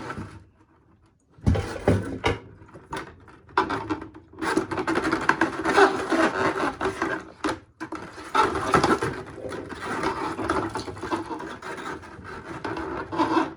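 Irregular scraping and rubbing on grimy sink drain parts as sludge is cleaned out by hand, with a few sharp knocks. It starts after a quiet first second or so.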